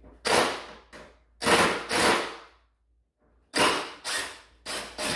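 Cordless drill driving screws into wooden rails in a series of short trigger bursts, about seven in all, each starting sharply and dying away quickly, with a brief pause in the middle.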